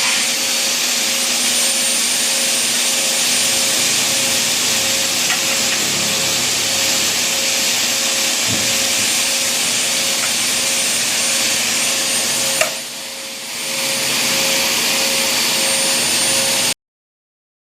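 Electric motor of an aluminium cutting saw running steadily with a high, hissing whine. About twelve and a half seconds in it clicks and drops off briefly, then runs back up to speed.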